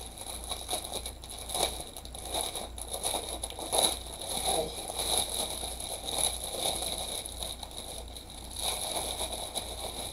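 Small plastic bags of diamond painting drills being handled and shaken, crinkling and rustling irregularly, with a few sharper crackles.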